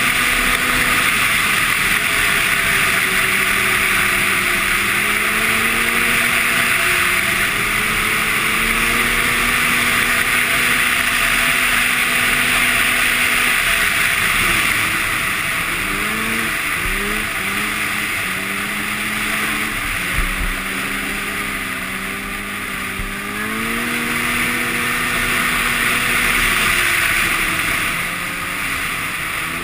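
Arctic Cat Sno Pro 500 snowmobile's two-stroke engine running under way, its pitch rising and falling with the throttle, with a few quick revs and drops around the middle, over a steady hiss of wind and track.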